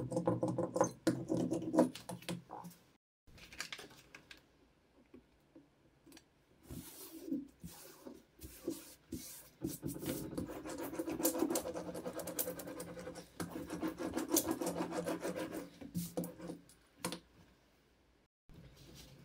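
Hand leather roller pressed and rolled back and forth over leather, a rubbing, scratchy sound in repeated strokes. It is loudest in the first couple of seconds and comes in a denser run of strokes about midway.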